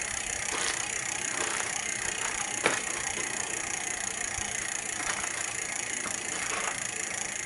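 Upside-down mountain bike's rear wheel spinning, its chain and cassette running through the rear derailleur with a steady whirr and light ticking, and one sharper clack a little under three seconds in.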